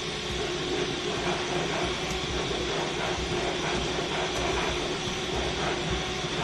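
Steady hiss and rumble of radio channel noise between fire department transmissions, with no voice on the channel.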